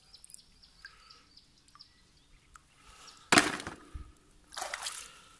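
Scrap-iron finds from magnet fishing being handled on wet stones, with faint small clicks. About three seconds in there is one sharp clatter, and near the end a short scraping noise.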